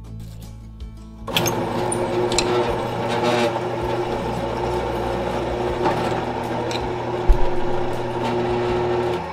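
Drill press running with its bit cutting into a metal pin held in a vise. About a second in, the cutting starts suddenly and goes on as a steady, loud grinding whine, with one sharp knock near the end.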